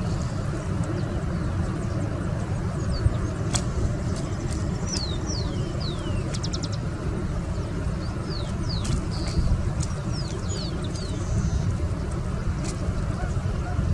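Steady low rumble outdoors, with birds calling in short, high, falling chirps scattered through it, most of them in the middle stretch, and a few sharp clicks.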